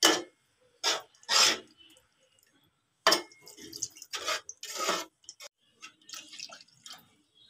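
A metal spatula scrapes and stirs a thick curry in an aluminium pot in a few short strokes. About three seconds in, water poured from a plastic cup splashes into the curry, with more short sloshes as it is stirred in.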